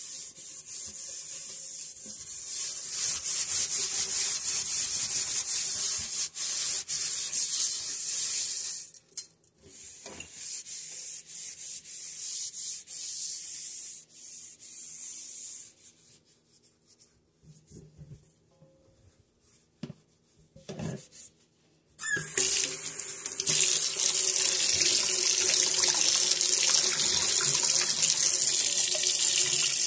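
A scrubbing pad rubs powdered cleanser over a stainless steel sink in fast, scratchy strokes. The strokes thin out to a few light scrapes, then near quiet for several seconds. About 22 seconds in, the kitchen tap comes on and water runs steadily into the sink.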